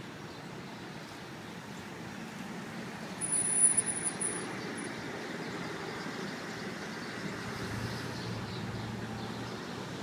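Ambulance engine running as the vehicle drives slowly past, without a siren, with a brief cluster of louder knocks or rustles about three and a half seconds in.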